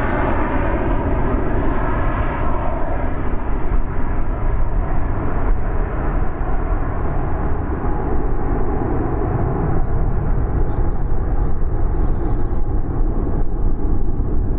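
Twin jet engines of an Airbus A320-family airliner climbing away after takeoff: a loud, steady rumble whose higher whining tones fade out over the first few seconds as the aircraft recedes.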